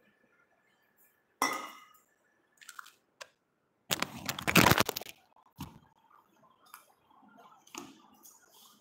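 Kitchen handling sounds: a metallic clank with a short ring about a second and a half in, then loud rubbing and knocking as the phone is picked up and moved, followed by soft squishing as a hand mixes a flour mixture in a steel bowl.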